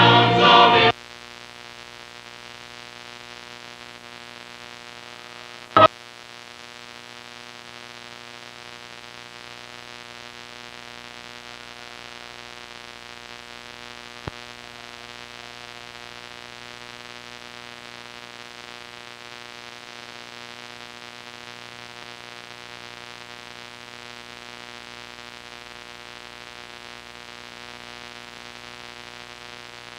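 The last of the choir's music cuts off abruptly about a second in, leaving the steady hiss and hum of old VHS tape playback. A sharp click comes at about six seconds and a faint tick some eight seconds later.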